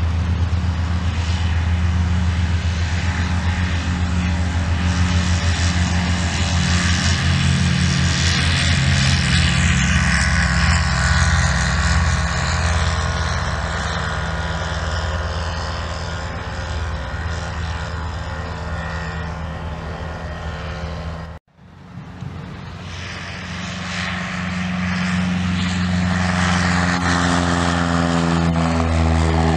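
A Rans S-6ES Coyote II ultralight flies low past with its engine running steadily; the pitch bends as it goes by and the sound eases off somewhat. About two-thirds of the way in the sound cuts off abruptly. Then a Piper Cherokee 140's four-cylinder Lycoming engine grows louder at takeoff power as the plane lifts off and climbs away, with a propeller drone.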